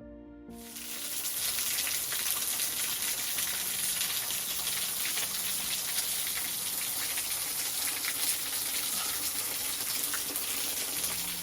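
Small side stream of water running and splashing over rocks, a steady hiss. It starts about half a second in.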